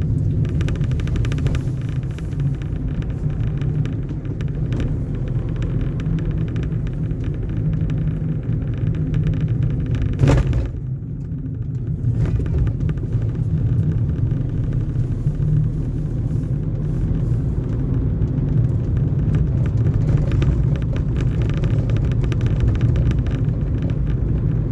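Steady low rumble of engine and tyre noise inside a moving car's cabin. A single sharp thump about ten seconds in, after which the higher road noise drops away for a second or two.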